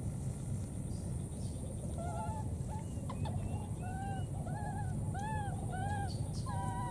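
Baby monkey giving a run of short cooing calls, each rising and falling in pitch, about one every half second from about two seconds in, the last one flatter and held longer. A steady low rumble sits under the calls.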